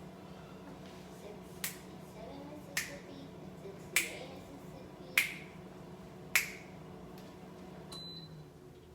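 Five sharp clicks about a second apart over a steady low hum that fades out near the end, followed by short high beeps repeating about once a second.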